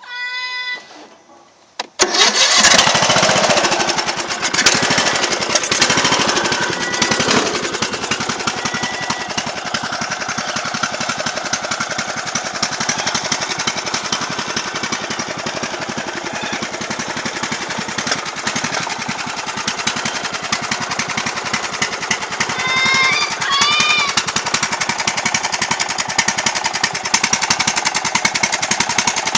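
A racing lawnmower's engine cuts in sharply about two seconds in, then runs loud and steady with a rapid, rattling firing beat.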